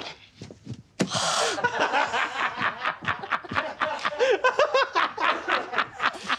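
A man laughing in quick, rapid pulses for several seconds. About a second in, a short sharp sigh of realization comes first.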